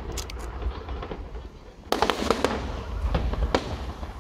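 Fireworks display going off: sharp bangs and crackles of bursting shells over a steady low rumble, with a loud cluster of reports about halfway through.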